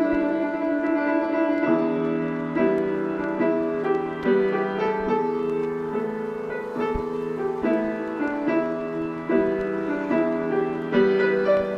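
Slow piano music, with a new chord struck about every second.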